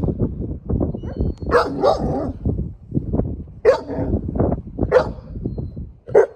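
Golden retriever puppy barking: about four short, sharp barks spaced a second or so apart.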